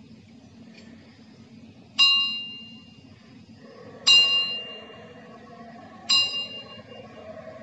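A ringing metal object struck three times, about two seconds apart; each strike rings out and fades within about a second.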